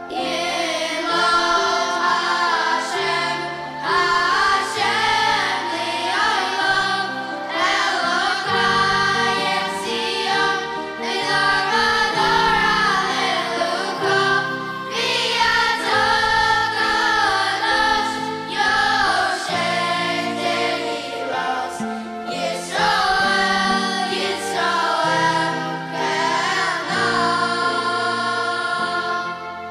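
A boys' choir singing a Hebrew liturgical song over an instrumental accompaniment, in continuous sung phrases.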